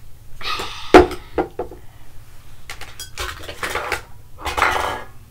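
Small hard objects being handled and knocked against each other and the shelf, clattering and clinking, with a sharp knock about a second in.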